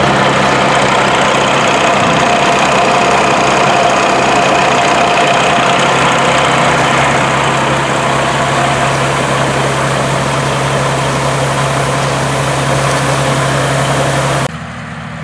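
Heavy diesel engine of a 1982 GMC General semi-truck running steadily, with a constant low hum. The sound drops away suddenly near the end.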